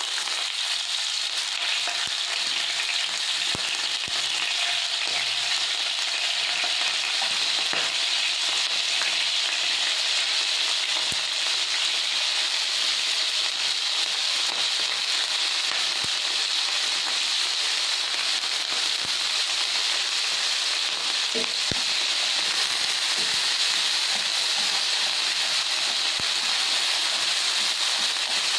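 Sliced pork frying in hot oil in a frying pan: a steady, dense sizzle with a few sharp pops.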